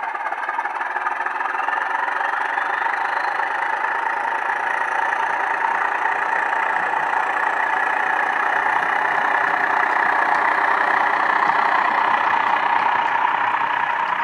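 Heljan OO-gauge Class 14 model locomotive's DCC sound decoder, running a Legomanbiffo sound file, playing the diesel-hydraulic's Paxman engine running steadily as the loco moves under power. It comes through the model's small speaker with little bass, and grows a little louder as the loco approaches.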